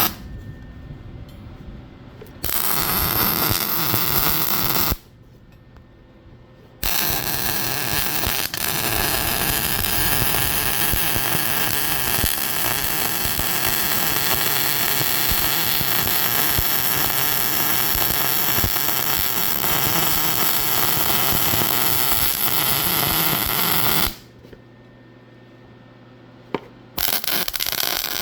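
Electric arc welding: the arc crackles and hisses through three weld runs, a short one a couple of seconds in, a long steady one of about seventeen seconds, and another starting near the end, with quiet pauses between them.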